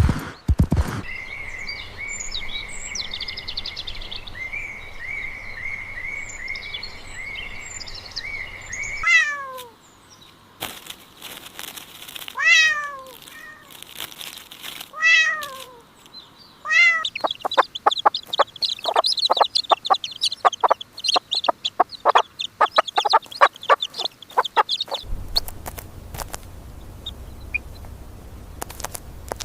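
A run of recorded animal calls. First comes a steady high trill with chirps over it, then four falling cries about a second apart, then a fast train of high chirps.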